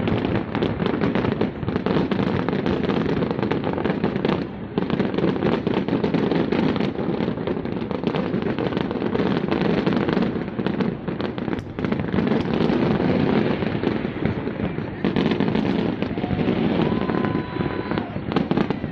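Aerial fireworks going off in a rapid, unbroken stream of bangs and crackles.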